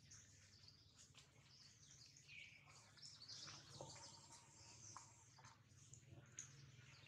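Near silence: faint forest ambience with small birds chirping now and then over a low steady hum.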